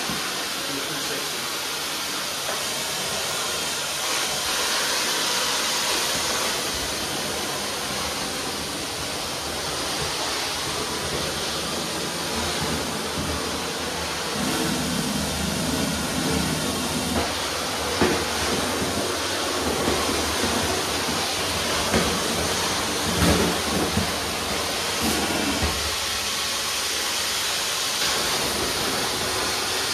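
Tile and grout cleaning equipment running with a steady, loud hiss, like pressurised spray and vacuum recovery, with a few short knocks in the second half.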